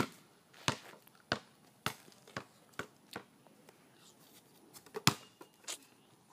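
A string of sharp taps or knocks that come quicker and fainter, then a short pause and three more taps about five seconds in.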